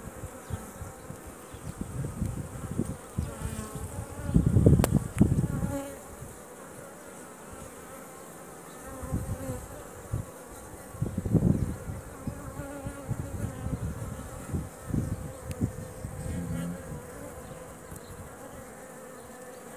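A honeybee colony humming steadily on an open hive frame. A few louder low rumbles break in, the loudest about five seconds in and another around eleven seconds.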